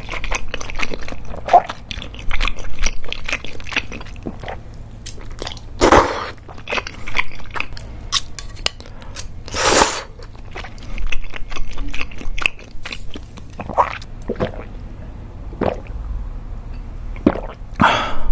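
Close-miked chewing of mentaiko cream udon: a steady run of wet mouth clicks and squishes, broken by a few louder, longer wet sounds, about three in all.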